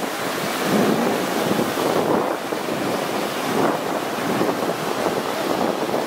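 Sea surf breaking and washing up the beach, with wind buffeting the microphone.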